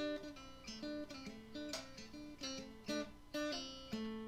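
Intro music on acoustic guitar: single plucked notes picking out a slow melody, ending on a note that rings on near the end.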